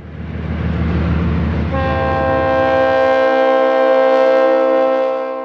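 GE diesel locomotive passing with its engine chugging, then sounding its multi-chime horn about two seconds in, one long blast held to the end: horn for a road grade crossing.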